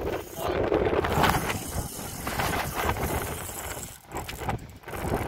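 Wind buffeting the camera microphone: an uneven, gusting rumble and hiss that dips briefly near the end.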